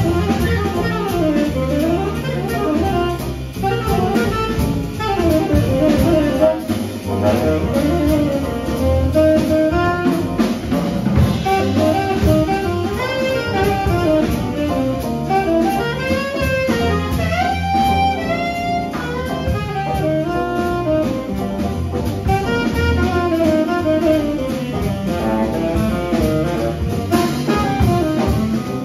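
Live jazz combo playing: a saxophone carries the melodic line over hollow-body electric guitar, piano, double bass and drum kit.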